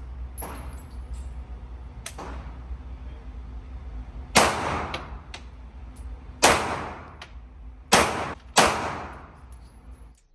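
Pistol shots echoing in an indoor firing range: four loud reports, near four and a half, six and a half, eight and eight and a half seconds in, with fainter shots between them, over a steady low hum.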